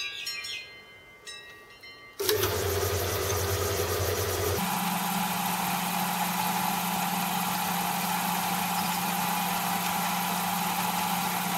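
Small metal lathe's motor starts about two seconds in with a steady hum. A couple of seconds later its pitch steps up, and it runs steadily while the tool takes a turning cut along the shaft, at a feed the machinist thinks is probably too high.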